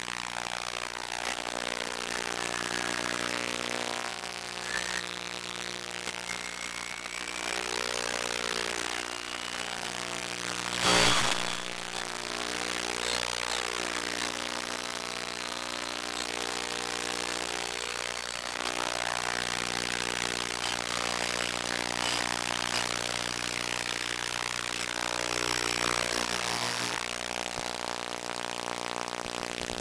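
Simple tricopter's three Turnigy D2830/11 1000kv brushless motors with 8x3.8 props buzzing in flight, the pitch shifting slightly as the throttle changes. A loud brief rush of noise cuts across about eleven seconds in.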